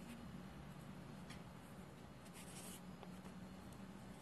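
Faint graphite pencil strokes on sketchbook paper: a few short scratches and one longer stroke about two and a half seconds in, over a low steady hum.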